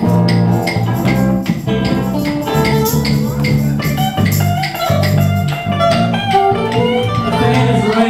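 Live band rehearsal: an amplified electric guitar playing over a repeating low bass line, loud and continuous, with sharp struck notes in the first couple of seconds.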